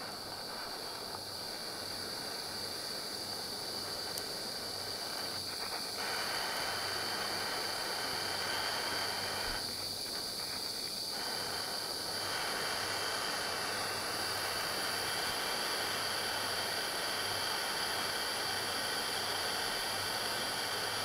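Small gas torch burning with a steady hiss.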